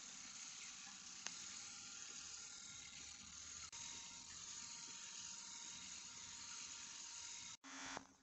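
Donnerberg NM090 shiatsu massager running, its electric motors turning the kneading nodes with a steady, hissy whir. There is a single click about a second in, then a short dip about four seconds in as it moves from first to third speed, after which a steady tone rides on the whir. The sound cuts out briefly near the end.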